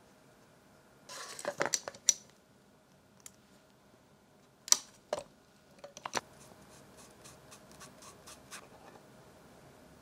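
Hard 3D-printed PETG plastic parts and a glue bottle being handled: a scraping slide with clicks about a second in, a few sharp clicks and knocks around the middle, then a run of faint light ticks.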